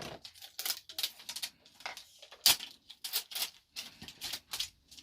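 Plastic toy packaging crinkling and crackling in the hands as a surprise toy bottle is opened, with a string of irregular crackles several times a second.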